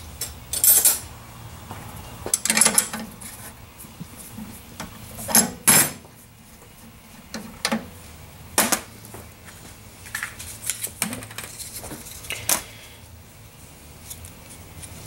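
Metal tools and fittings clinking and clattering as a quick-connect air plug is unscrewed from the port of an air filter-regulator: a scattered string of sharp clinks, the loudest a close pair about five and a half seconds in.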